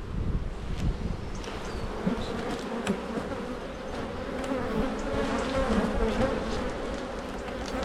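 Honey bees buzzing around an open hive during a frame inspection, the hum swelling louder about five seconds in.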